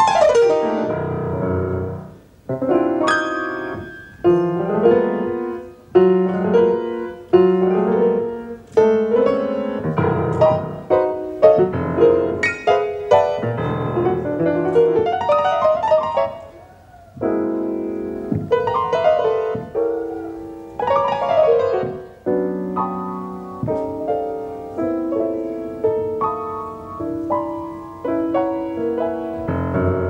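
Grand piano played solo in a free-jazz style: dense chords and quick runs of notes with abrupt stops. It falls away briefly about two and a half seconds in and again about seventeen seconds in.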